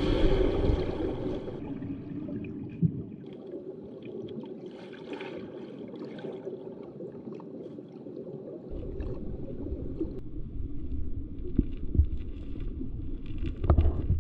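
Muffled water sloshing and gurgling, with shifting low rumble and a few knocks, about three of them near the end.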